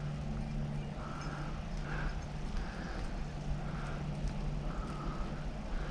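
Faint, distant rabbit hounds baying in a loose, irregular string of calls over a steady low hum.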